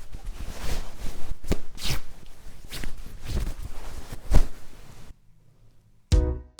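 Shuffling and knocking noises of movement and handling, stopping about five seconds in. Just before the end a plucked-string music cue begins.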